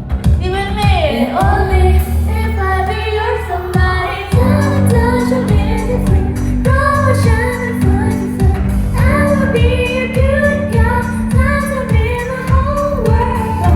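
Pop song with a female vocal singing over a steady bass line.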